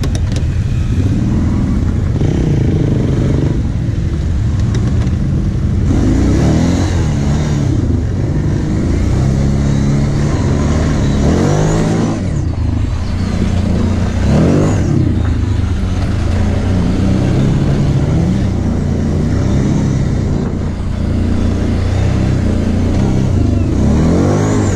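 Kawasaki KVF 750 Brute Force quad's V-twin engine running while being ridden, revving up and down over and over, with several sharp rising revs.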